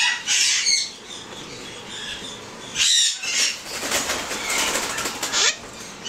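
Young blue-crowned conures flapping their wings in fluttering bursts as they try their first flights: a burst at the start, another about three seconds in, then a quick run of wingbeats lasting a couple of seconds.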